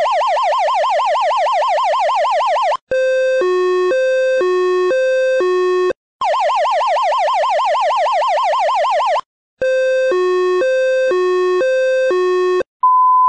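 Electronic dispatch alert tones: about three seconds of a fast warble, then about three seconds of a hi-lo tone stepping between two pitches roughly twice a second, the pair repeated, and a steady single beep starting near the end as the lead-in to a radio dispatch.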